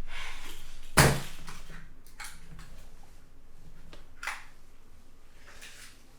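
A sharp knock about a second in, then a few fainter taps and handling noises that die away.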